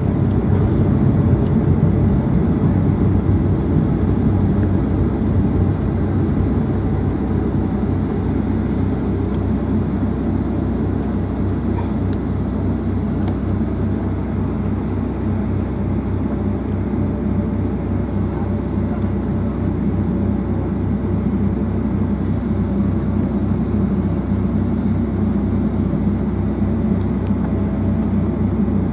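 Steady cabin noise inside a Boeing 757-200 in flight: a low engine drone with rushing airflow.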